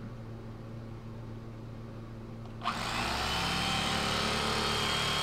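A Hamilton Beach electric knife switches on about two and a half seconds in. Its motor buzzes steadily as the reciprocating blades cut through a largemouth bass fillet.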